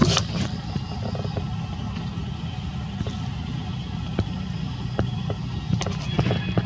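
Steady low outdoor rumble with scattered small clicks and taps, and a brief sharp sound right at the start.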